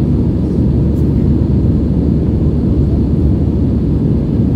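Steady low rumble of a jet airliner in flight, engines and rushing air heard from inside the passenger cabin.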